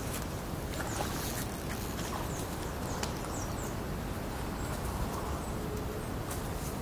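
Steady low rumbling outdoor noise, with a few faint, short, high bird chirps in the first half.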